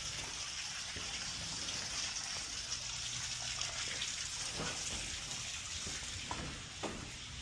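Water pouring and splashing out of the back of a boiler as it is drained, a steady hiss, with a few faint knocks in the second half.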